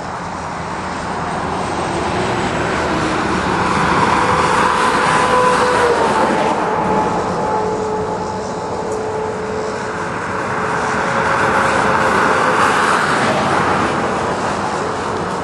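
Roadside traffic noise: vehicles passing close by, swelling twice. The first brings an engine tone that drops in pitch as it goes past.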